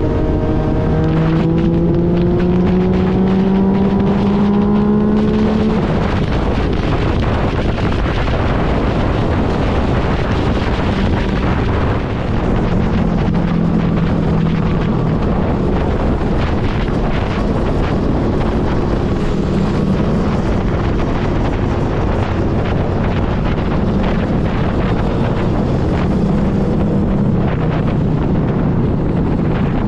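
Riding on a 2016 Yamaha FZ-09: the three-cylinder engine rises steadily in pitch under acceleration for about six seconds, then the engine runs on more quietly under heavy wind noise on the microphone at speed.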